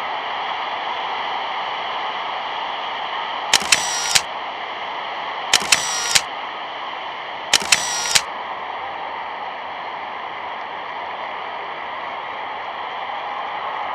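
Steady hiss from an old film soundtrack with no speech, broken three times about two seconds apart by a quick cluster of three sharp clicks.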